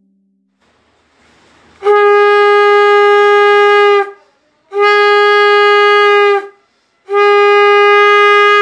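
Conch shell (shankh) blown three times: three long notes held at one steady pitch, about two seconds each, the first starting about two seconds in.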